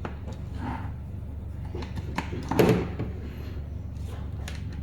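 Handling noises from connecting a USB cable and plug adapter: a few light clicks and one louder knock about two and a half seconds in, over a steady low hum.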